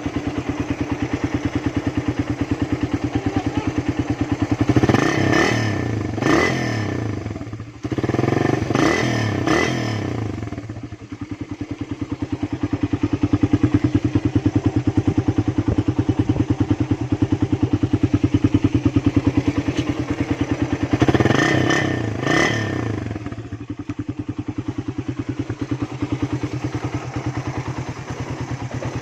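Engine running with its catalytic converter removed, idling with a quick steady exhaust pulse and revved up three times in short bursts, about five, eight and twenty-one seconds in.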